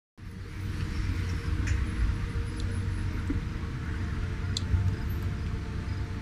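Steady low background rumble of scene ambience, with a few faint ticks, cutting in suddenly from silence just after the start.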